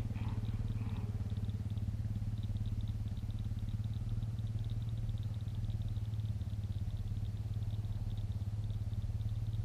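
Steady low engine hum of an idling motor, even in level throughout. From about two seconds in, a faint, fast, evenly spaced ticking sounds over it.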